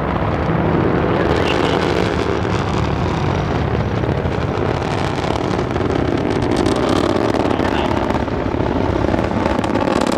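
Antares rocket's first-stage engines heard from the ground during ascent: a loud, steady rumble with no break.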